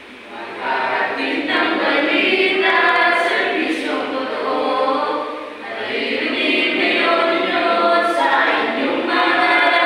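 A mixed group of young men and women singing together without accompaniment, coming in about half a second in, with a short pause between phrases near the middle.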